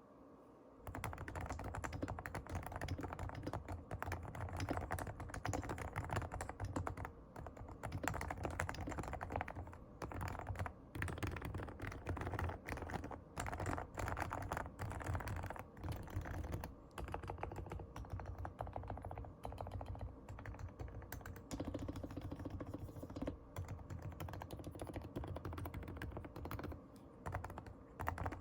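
Continuous fast typing on a Leopold FC660C keyboard with silent 45g Topre electro-capacitive switches, lubricated with Krytox 103 and 105, starting about a second in, with brief pauses. Soft, muted keystrokes, with a slight leftover spacebar noise.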